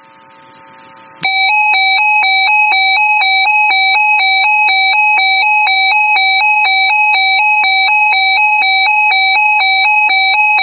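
Weather radio alert tone: a loud electronic warble switching between two pitches about twice a second, starting abruptly about a second in and cutting off suddenly, the alert that comes before a NOAA Weather Radio tornado watch broadcast.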